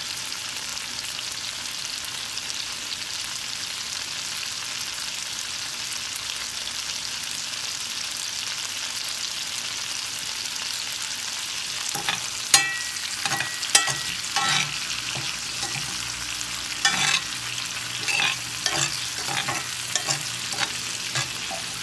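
Chopped tomatoes frying in sesame oil in a pan, a steady sizzle as their juice cooks off. From about halfway through, a utensil scrapes and knocks against the pan in irregular strokes as they are stirred.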